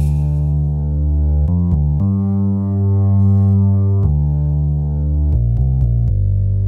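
Music: held keyboard or synthesizer chords that change every second or two, with no beat.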